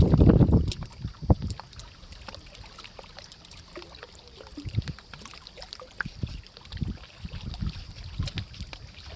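Water sloshing and splashing with scattered light knocks and clicks, with a low rumble like wind on the microphone in the first second.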